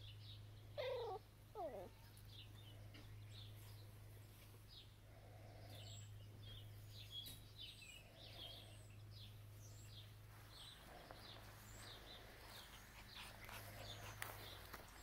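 A domestic cat gives two short cries about a second in, each falling in pitch, over faint high chirping and a low steady hum.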